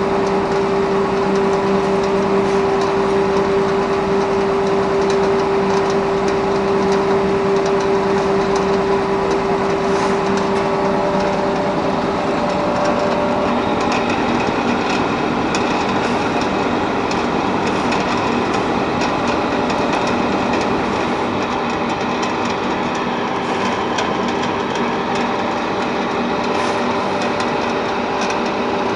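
Small sawdust pellet mill production line running: a steady machine hum under a dense clattering rattle, with the main hum tone dropping away about halfway through and coming back near the end.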